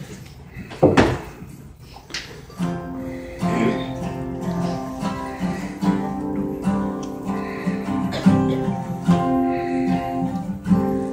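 Acoustic guitar playing the opening of a song, sustained picked notes changing every fraction of a second, starting about two and a half seconds in. A single loud thump comes about a second in, before the guitar starts.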